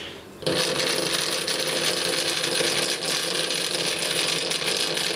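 A small electric motor wired to a repaired jump starter's clamp, switching on about half a second in and running steadily with a mechanical whirr and a few held tones, showing the jump starter now delivers power.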